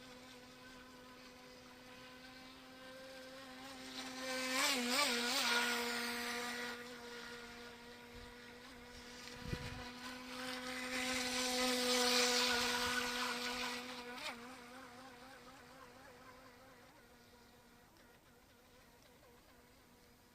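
Electric RC speedboat's motor running at speed: a steady high whine that swells loudly twice as the boat passes close, with hiss of water at the loudest moments. The pitch wavers briefly about five seconds in and again near fourteen seconds, then the whine fades as the boat runs off into the distance.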